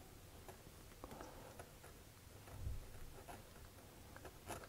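Faint scratching of a Pilot Metropolitan fountain pen's medium steel nib on notebook paper, written with the nib upside down (reverse writing), which feels very scratchy. A soft low thump a little over halfway through.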